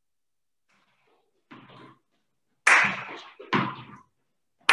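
A faint soft knock, then two sharp smacks about a second apart, each dying away quickly with a short room echo.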